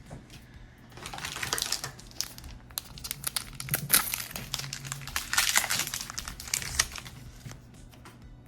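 Foil trading-card booster pack wrapper crinkling as it is handled, from about a second in until it dies away near the end.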